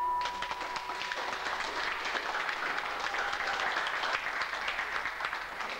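Audience applauding, with the last of a boxing ring bell's ring fading out about a second in.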